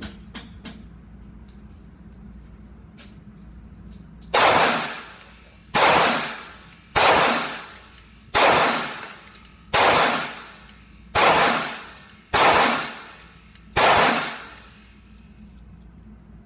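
Eight handgun shots fired at a slow, steady pace, about one every second and a half, each loud crack followed by a long ringing decay.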